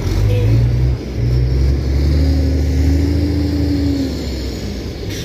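Heavy diesel engine running loudly, its pitch rising a little in the middle and easing off toward the end.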